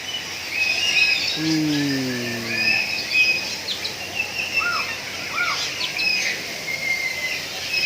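A mix of birds chirping and whistling, with many short overlapping calls and two arched whistled notes a little past the middle. About a second and a half in, a person's voice gives a long falling sound.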